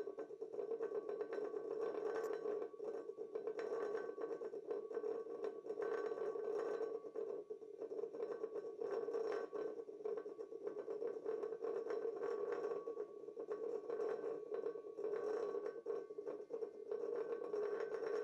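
Game-controller rumble-pack vibration motors buzzing against a partly filled glass fishbowl: a steady hum with a fine, uneven rattling chatter, its level swelling and dipping irregularly.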